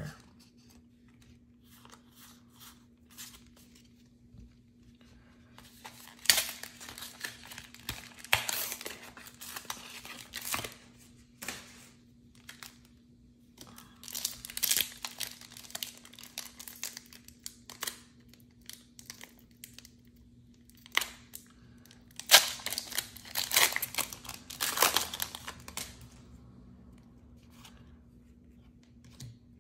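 A Pokémon card booster pack's foil wrapper being torn open and crinkled by hand. The tearing and rustling comes in three spells, about six, fourteen and twenty-two seconds in, with light card handling in between.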